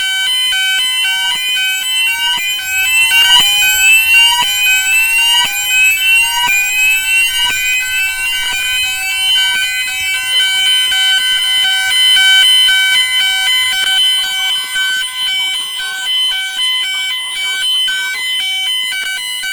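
Store fire alarm sounding the evacuation signal after a manual pull station was pulled. A rising sweep tone repeats about once a second over a rapidly pulsing tone. The sweeps stop about eleven seconds in, leaving a steady high tone with the pulsing.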